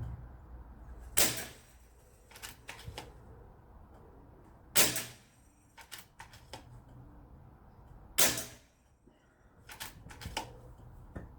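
Air rifle fired three times, about three and a half seconds apart, each shot followed a second or so later by a few lighter clicks and clacks.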